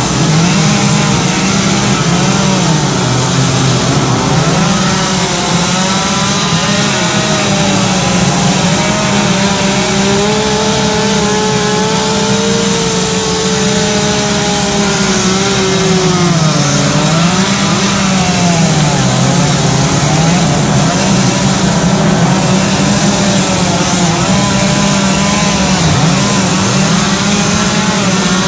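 Chainsaws running hard while carving wood, their engine pitch rising and falling constantly as the saws bite and ease off. Several saws at different pitches overlap.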